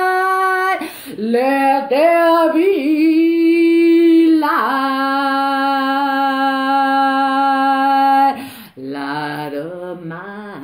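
A woman singing solo without accompaniment: a long held note, then about a second in a wordless run that bends up and down, then a second long held note at a lower pitch until about eight seconds in. After that come softer, lower notes.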